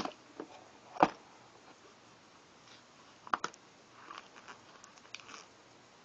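Tools and packs being handled in a hard-shell, aluminium-framed tool case: a sharp knock about a second in, a quick pair of clicks a little past three seconds, then lighter clicks and rattles as an item is lifted out.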